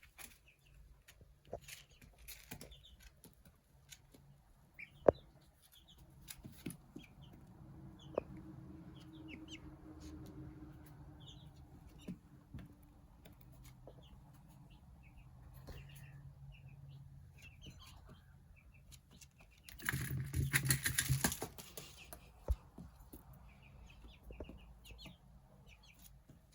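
Young Australorp, Light Brahma and Silkie bantam cross chick peeping faintly, with scattered light taps, then a burst of wing flapping about three-quarters of the way through that lasts about two seconds: a startled flutter, a 'little fear dance'.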